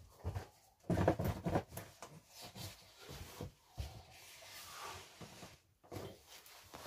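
Cardboard box and paper being handled: a quick run of knocks and rustles about a second in, then a soft sliding rub of a hand across the cardboard lid, then a few more light knocks.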